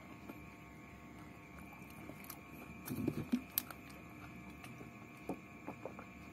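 Faint eating and drinking sounds over a steady electrical hum. About three seconds in there is a short cluster of soft knocks and sharp clicks as a clear plastic drinking bottle is handled and lifted to the mouth, and a few light clicks near the end.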